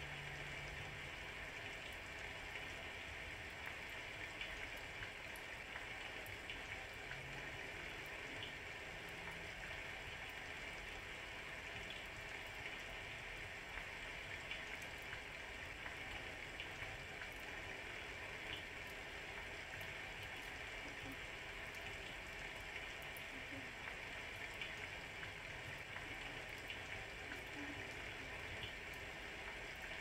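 Steady rain falling, with scattered drips ticking.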